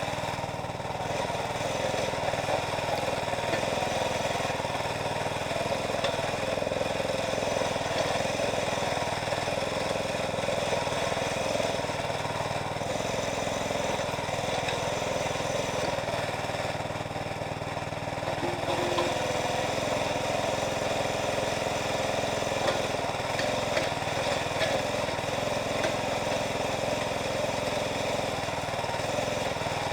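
Small engine of a towable backhoe running steadily while the backhoe digs, with a slight drop in level for a moment past the middle.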